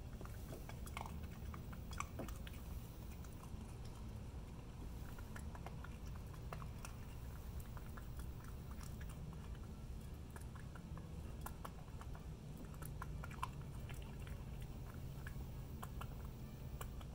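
Raccoon eating dry cat food kibble from a bowl: irregular small crunches and clicks of chewing throughout, over a low steady background hum.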